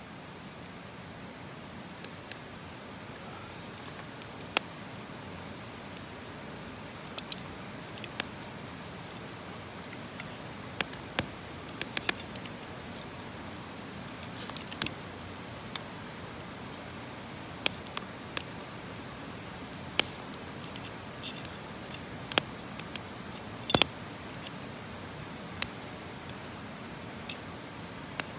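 Wood campfire crackling: irregular sharp pops and snaps over a steady low hiss.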